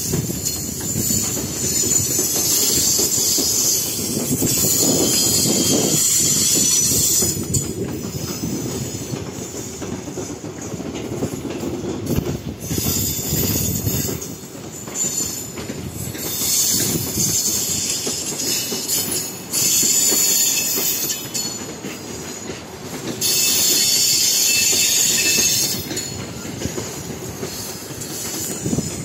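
Passenger coaches rolling through a rail yard: the wheels rumble and click over rail joints and switches, with repeated bouts of high-pitched wheel squeal lasting a few seconds each.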